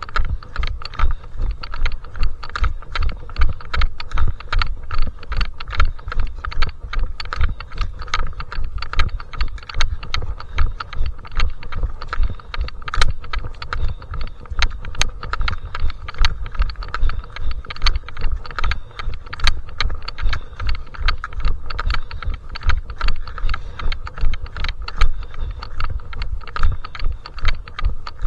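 Trail poles clicking against the ground in step with walking footfalls: a steady rhythm of sharp taps, about two a second, over low thumps.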